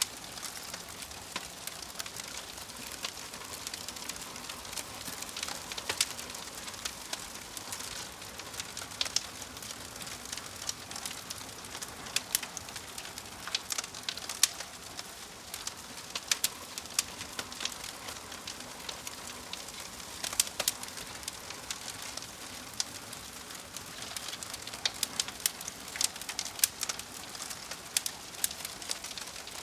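Wood fire burning in a fireplace: a steady hiss with frequent sharp, irregular crackles and pops from the logs.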